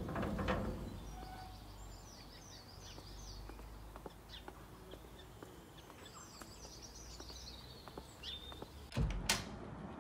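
Quiet outdoor ambience with small birds twittering in two short bouts. About nine seconds in come two sharp knocks close together.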